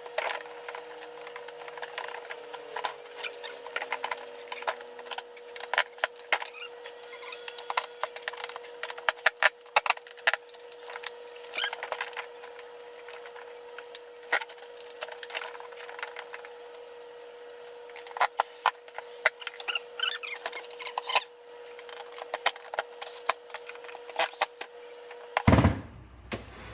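Irregular clicks, knocks and scrapes of a refrigerator door being handled and fitted onto its hinges, over a faint steady hum.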